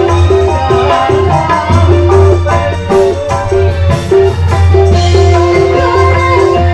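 Loud music with a steady beat: a short melodic figure repeats over a constant deep bass, with shaker-like percussion.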